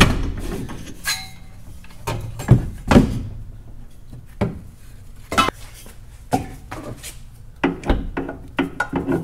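Irregular metal clanks and clinks of tools and parts while a new aluminum driveshaft is fitted: about a dozen separate knocks at uneven spacing, the loudest near the start and around two and a half to three seconds in.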